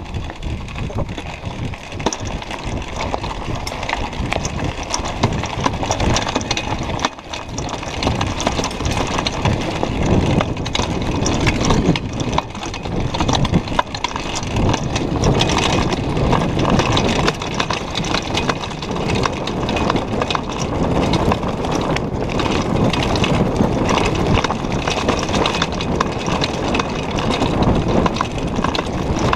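Mountain bike descending a rocky gravel trail: a continuous clatter of tyres over loose stones with the bike's frame and chain jolting, many small knocks close together, growing louder about a quarter of the way in.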